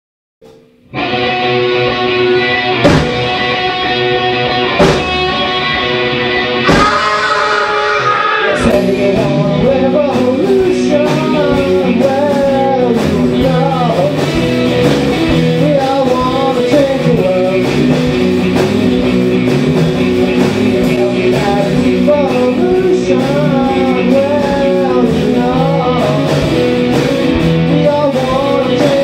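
Rock band playing on electric guitars, bass and drums. It opens with three loud chord hits about two seconds apart, then settles into a steady driving groove from about nine seconds in, with singing over it.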